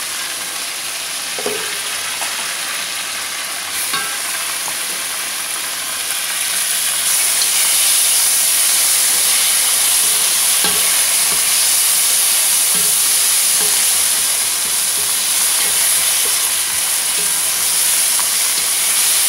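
Tomato, onion and spice masala sizzling in a pot with its lid off, stirred and scraped now and then with a wooden spoon; the sizzle grows louder about seven seconds in.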